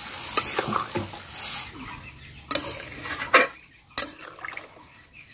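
Hot water poured into a pea curry in a metal kadai, tailing off in the first second, then a metal spatula stirring and knocking against the pan several times.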